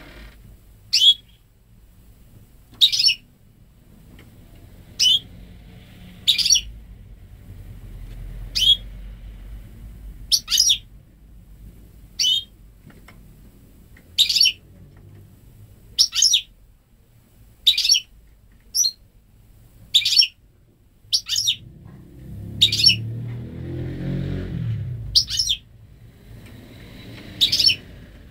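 Goldfinch × canary hybrid (saka mule) giving short, sharp high calls about every one to two seconds, its notes purely goldfinch-like. A low muffled rumble rises for a few seconds past the middle.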